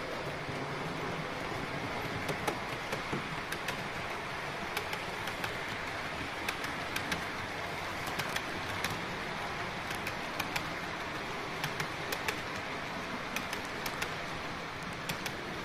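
Model trains running on the layout's track: a steady rushing hum with clusters of sharp clicks as the wheels pass over the rail joints.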